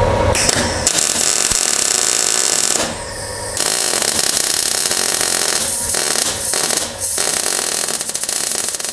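MIG welder arc crackling steadily as a metal cabin support bracket is welded on, with a drop of about half a second around three seconds in and two brief breaks near six and seven seconds, stopping at the end.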